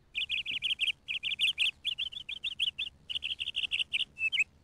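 A bird chirping in rapid runs of short, high notes, about ten a second, broken by brief pauses. Near the end come a few slower, lower notes.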